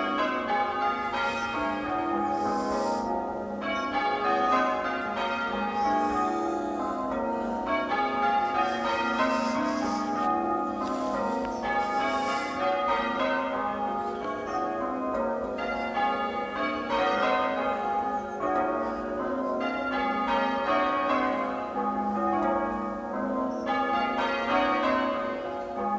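Church tower bells being change rung during a peal, a steady unbroken stream of overlapping bell strokes.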